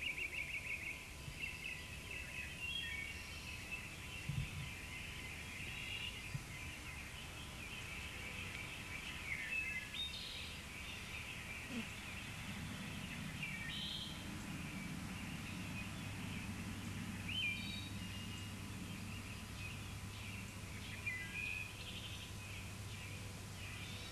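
Birds chirping on and off in short high-pitched calls over faint steady background noise, with a low hum coming in past the middle.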